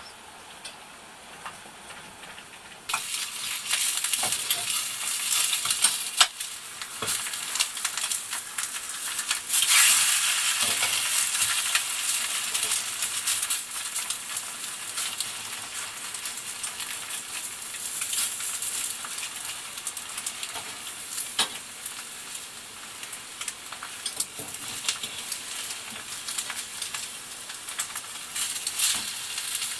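Eggs frying in a well-seasoned cast-iron skillet: a sizzle that starts suddenly about three seconds in and keeps on, with constant spitting and crackling, loudest around ten seconds in.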